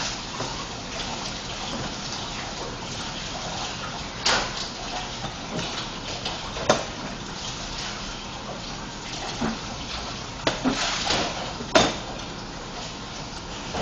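Small tools and a fondant smoother knocking and clicking on a stainless steel worktop, a few sharp knocks spread out. A steady rushing noise sits underneath throughout.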